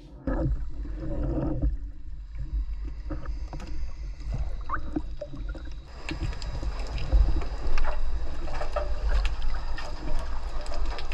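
Underwater sound from a diving camera in shallow breaking surf: a steady low rumble of moving water with scattered clicks and crackles, louder in the second half.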